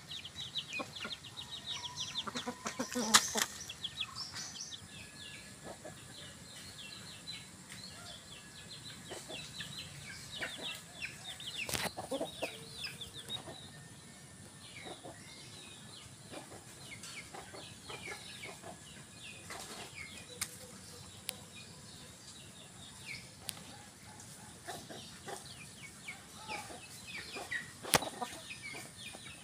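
Chickens clucking, with many short, high peeps throughout and one louder call about three seconds in. A couple of sharp clicks come about twelve seconds in and near the end.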